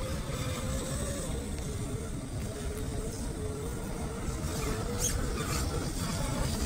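Electric motor and gearbox of an FMS FJ40 Land Cruiser RC scale crawler whining steadily as it drives through tall grass, the pitch wavering slightly, over a steady rumble.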